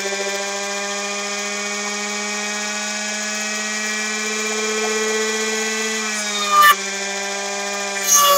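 Air-core motor generator running with a steady electrical hum rich in overtones, its pitch dipping slightly about six seconds in. Near the end a plasma arc strikes at the output electrode twice, each a short loud crackling flash.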